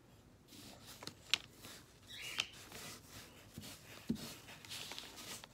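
A rag being worked in a can of wood stain and then wiped onto a bare wooden frame: faint handling noise with a sharp click a little over a second in and a low knock about four seconds in, then rubbing strokes near the end.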